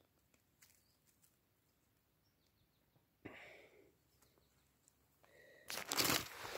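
Mostly faint outdoor background with a brief breathy rustle about three seconds in. Near the end, loud rustling and crunching of dry undergrowth and handling noise start as the phone is moved.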